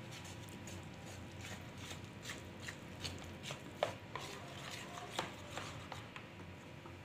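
Metal spoon stirring and scraping a wet mixture in a plastic bowl: a run of small clicks and scrapes, several a second, with two sharper knocks against the bowl about four and five seconds in.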